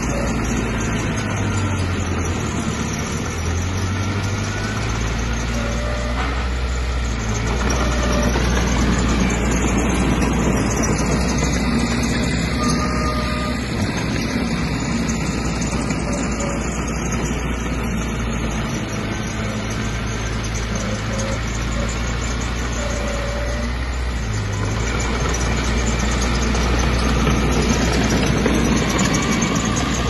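Diesel engine of a Komatsu D20P crawler bulldozer running steadily at work, with a continuous low hum that swells slightly a couple of times.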